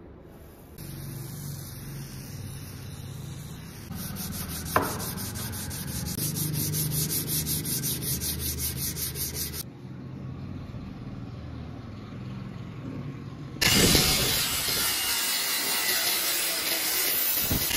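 Sandpaper rubbed by hand on the wooden hatchet handle in quick back-and-forth strokes, at one point about four strokes a second, with a single sharp knock about five seconds in. About 14 seconds in it gives way to a louder, steady rasping hiss.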